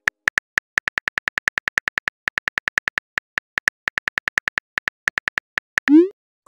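Phone keyboard click sounds, a quick irregular run of taps as a text message is typed, ending near the end in a short rising whoosh as the message is sent.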